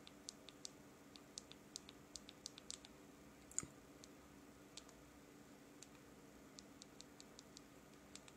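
Light clicks of a fingertip tapping and scrolling on a Samsung Galaxy S3 mini's touchscreen. There are about a dozen quick taps in the first three seconds, one sharper tap about three and a half seconds in, then scattered taps.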